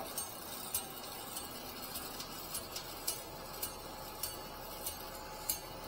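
Faint, regular mechanical ticking, about one tick every half second or so, over a low steady background noise.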